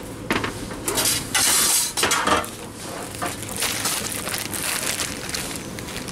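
Irregular bursts of handling noise, rustling and clinking, as bread packages are picked up and moved about at a shelf. The longest, loudest burst comes about a second and a half in.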